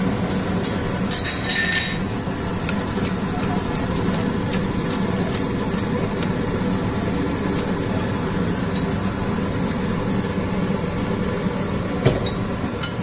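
A steady low mechanical hum, with a few light clicks and taps as a ceramic bowl is handled.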